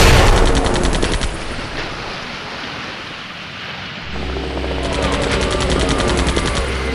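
Sound-effect machine-gun fire from a helicopter: a loud burst of rapid shots at the very start that dies away over about a second and a half. From about four seconds in, a steady low helicopter rumble with rapid, even beats.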